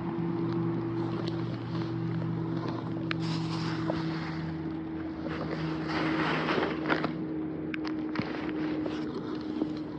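An engine hums steadily at one unchanging pitch, under wind noise and scattered light clicks and rustles.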